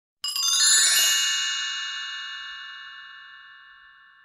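Bright chime jingle: a quick sparkling run of bell-like notes starts about a quarter second in, then a held chord rings on and slowly fades away.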